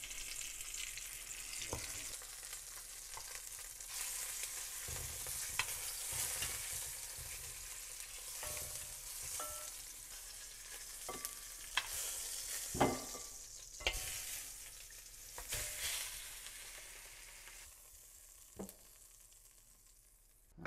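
Lamb shanks searing in hot olive oil in an enamelled cast-iron casserole dish, sizzling steadily, with scattered knocks and clicks as the meat is moved about in the pot. The sizzle dies down near the end.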